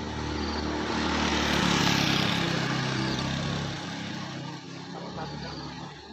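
A motorcycle engine going past, growing louder to a peak about two seconds in and then fading away.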